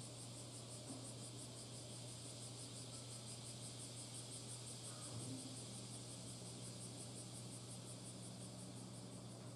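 Insects chirping: a faint, high-pitched, evenly pulsing trill of about four pulses a second, over a steady low hum.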